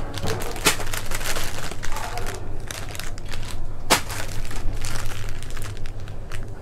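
Crinkling and rustling of packaging as socks are handled and shown, with irregular crackles and one sharp click about four seconds in, over a steady low hum.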